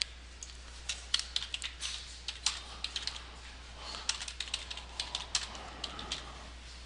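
Computer keyboard being typed on: short runs of quick keystroke clicks with brief pauses between them.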